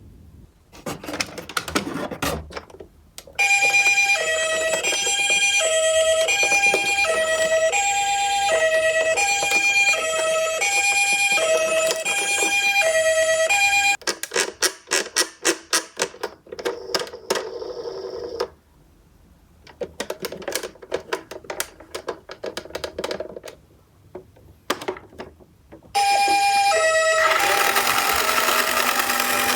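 Japanese ambulance two-tone 'pee-po' siren, a high and a low note alternating about once a second, sounding for about ten seconds and again near the end. In between, die-cast toy cars clatter down a slope in quick runs of sharp clicks and rattles.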